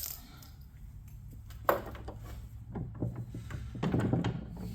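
Handling of metal belt-grinder parts: a sharp knock about two seconds in, then a run of lighter clinks and rattles, over a steady low hum.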